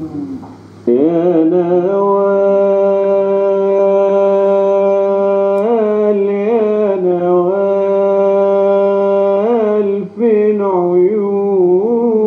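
A man singing long held notes on a vowel, without words, in Arabic tarab style, with short ornamental turns between the held notes. The singing breaks off briefly about ten seconds in, then resumes with more turns.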